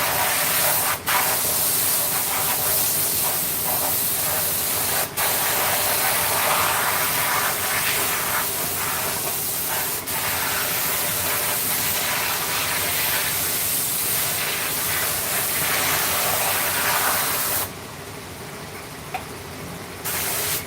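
Loud steady hiss of a jet of air or spray, broken by short pauses a few times and cutting off near the end.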